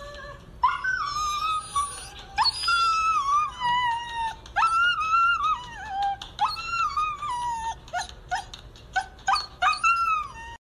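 Husky whining and howling in a series of long cries that slide down in pitch, then a quick run of short yelps near the end, cut off abruptly.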